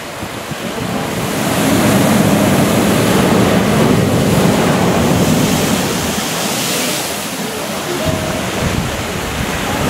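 Ocean surf surging and breaking into a rocky blowhole inlet: a continuous rushing wash of water that swells a second or two in and eases off after about five seconds.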